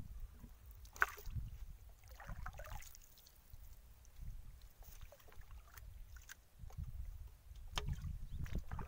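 Paddle strokes from a wooden boat: a flat-bladed bamboo paddle dipping and pulling through the water, with splashes about a second in, around two and a half seconds, and near the end, over a steady low rumble.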